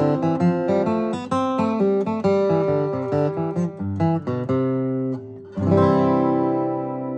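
Gallagher acoustic guitar flatpicked, playing a waltz melody in quick single notes. About five and a half seconds in, a full chord is struck and left to ring, slowly fading.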